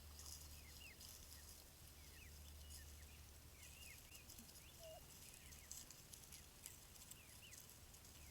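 Faint, high-pitched peeping of wild turkey poults: many short chirps, some rising and some falling, scattered throughout over a low steady hum. A single lower call comes about five seconds in.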